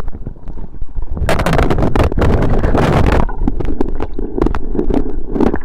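River water splashing over and around the phone's microphone. About a second in there is a loud rushing splash that lasts about two seconds, followed by a muffled rumble with scattered knocks as the phone is dunked and moved through the water.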